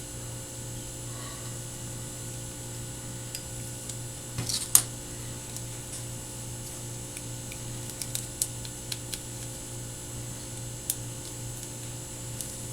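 Sharp clicks and small scrapes of a razor blade scoring and cutting back the outer jacket of an HDMI cable. The loudest snap comes about five seconds in, and a few lighter ticks follow, over a steady low hum.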